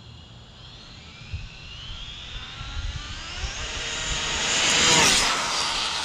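Arrma Felony RC car's brushless motor and drivetrain whining at high speed, rising in pitch and loudness as it approaches, loudest about five seconds in as it passes close, then dropping slightly in pitch as it goes away.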